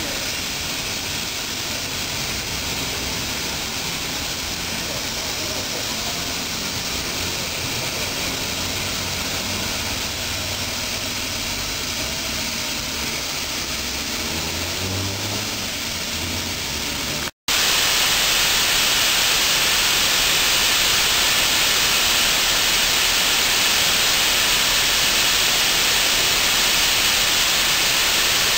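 Standing steam locomotive giving off a steady hiss with a low rumble. The sound breaks off for an instant about 17 seconds in, then a louder, steady hiss of steam blowing off above the boiler takes over.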